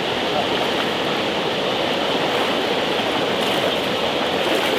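Rushing water of a rain-swollen mountain stream, a steady, unbroken rush.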